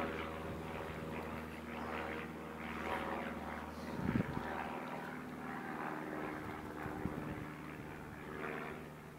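A steady, even engine drone, with a brief thump about four seconds in.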